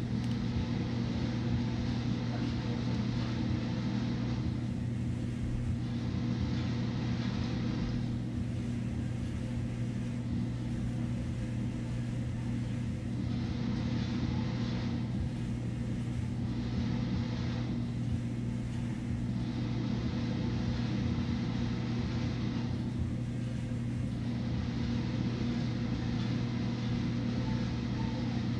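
Steady low machine hum at a constant pitch, with a faint hiss that rises and falls over it.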